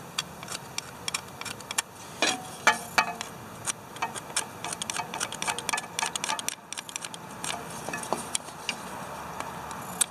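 Screwdriver tip scraping and clicking against the terminals inside a Ford 2600 tractor's distributor cap, an irregular run of small sharp clicks and scratches: cleaning carbon buildup off the cap.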